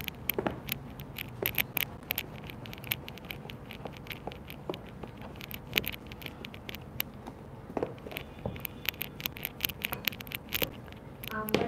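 Wooden rolling pin rolled back and forth over a slice of bread on a board, flattening it, with many quick irregular clicks and taps as it goes.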